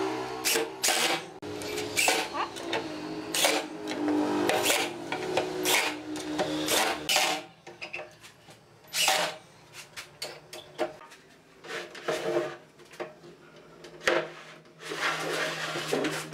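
Cordless drill driving wood screws into wooden bench slats: the motor whirs in repeated runs with clicks and knocks, densely for the first half, then in shorter, sparser spurts.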